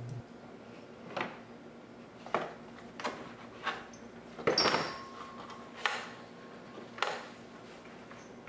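Irregular knocks and clunks of a plastic radiator fan blade and its fan clutch being handled and worked up through the fan by hand, about seven in all, with a louder cluster of knocks about halfway through.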